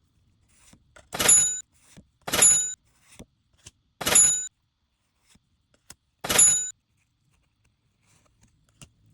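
Four short, identical swishes, a second or two apart, as Pokémon cards are swiped through one by one, with faint rustles and clicks of card handling between them.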